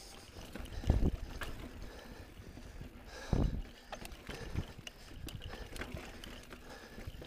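On-One Codeine 27.5 mountain bike descending a rocky dirt trail: tyres rolling and crunching over dirt and rock, with steady rattling and clicking from the bike. Two heavy low thumps come about a second in and about three and a half seconds in.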